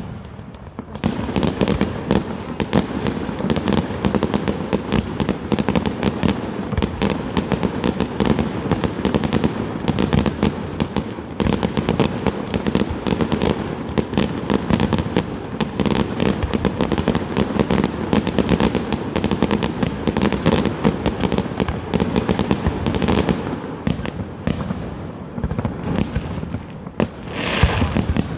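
Fireworks display going off in a dense, unbroken barrage of rapid bangs and crackling, starting about a second in, thinning slightly before a strong burst near the end.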